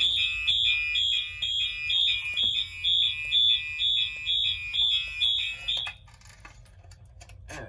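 Electronic fire alarm horn sounding in an even pulse, about two high-pitched beeps a second, after the pull station has been key-activated. It cuts off about six seconds in.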